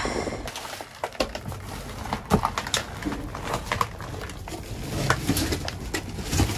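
Hands rummaging through discarded produce, black plastic bags and cardboard boxes in a dumpster: irregular rustling and crinkling with scattered knocks and clicks.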